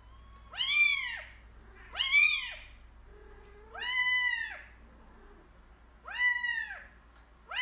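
A kitten meowing: five high-pitched meows, each rising and then falling in pitch, one every second or two, the last right at the end.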